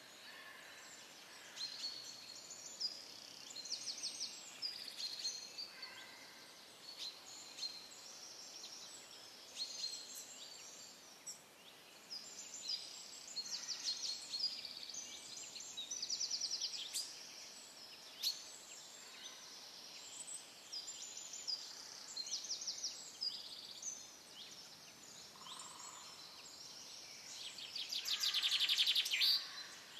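Several songbirds singing and calling: short chirps, whistled notes and rapid trills, with the loudest trill near the end.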